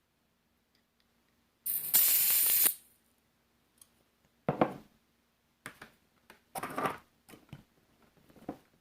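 Butane gas hissing into the refill valve of a Power Probe butane soldering iron for about a second as it is topped off, followed by several shorter bursts and clicks.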